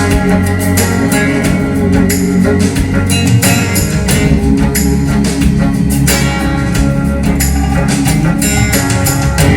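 Rock music with electric guitar, bass and drums in an instrumental passage between sung lines.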